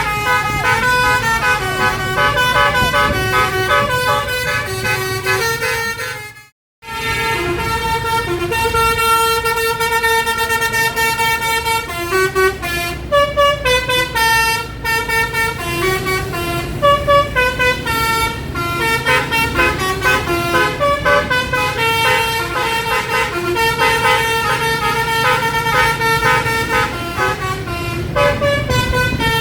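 Telolet basuri multi-tone bus horn playing a melody note by note over a low rumble of engine and road noise. The sound cuts out for a moment about six seconds in, then the tune carries on.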